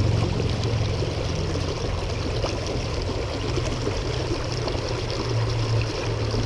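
Creek water flowing and trickling steadily, with a low steady rumble underneath.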